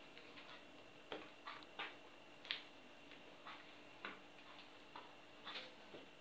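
A metal utensil stirring soft dough into flour on a wooden table: irregular light clicks and taps, about two or three a second, over a faint steady hum.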